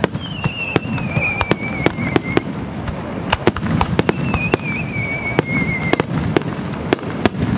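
Fireworks display: a rapid barrage of aerial shell bursts, one bang after another. Twice a high whistle sounds for about two seconds, falling slightly in pitch.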